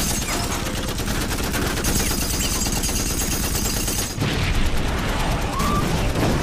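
Continuous rapid machine-gun fire from a film soundtrack, the shots coming in an unbroken stream. It grows louder from about four seconds in.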